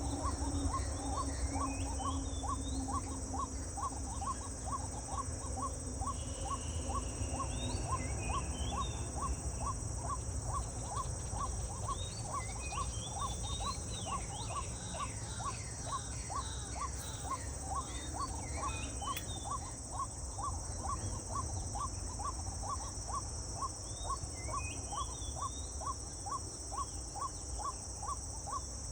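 Outdoor insect chorus: a steady high-pitched drone, with a short note repeating about twice a second, scattered bird chirps and a low rumble underneath.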